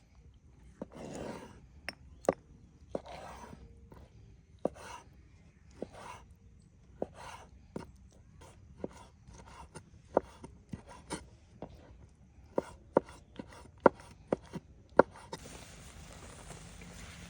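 A knife chopping food on a wooden board: sharp, irregular knocks with softer scraping between strokes. A steady hiss starts near the end.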